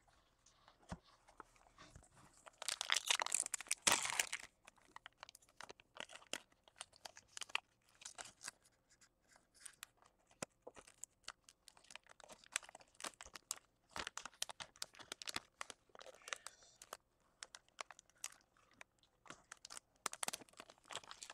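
A foil trading-card pack being torn open, its wrapper crinkling and crackling as the hands work it; the loudest rip comes about three seconds in, with more crinkling bursts later on.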